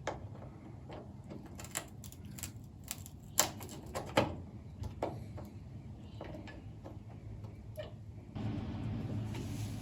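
Scattered sharp clicks and taps of small parts being handled as an LED bulb is fitted into a turn-signal housing, about a dozen at uneven intervals. A steady low hum comes in near the end.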